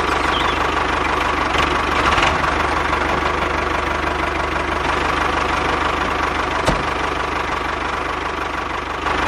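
Diesel tractor engine sound idling steadily with an even knocking beat. A single short click about two-thirds of the way through.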